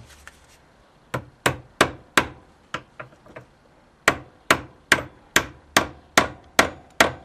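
Hammer blows driving a part into place: a few hard strikes, several lighter taps, a short pause, then a steady run of blows at about two to three a second.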